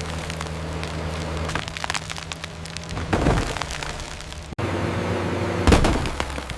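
Bulldozer diesel engine running steadily amid continual crackling and snapping, with two heavy cracking crashes, one about three seconds in and one near the end. The engine hum fades in the first second or two and returns abruptly at a hard cut partway through.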